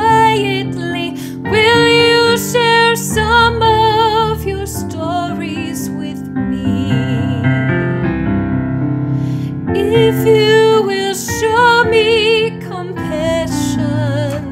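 A woman singing a hymn with vibrato over a piano accompaniment. About six seconds in she stops singing for roughly four seconds while the piano plays on, then she comes back in.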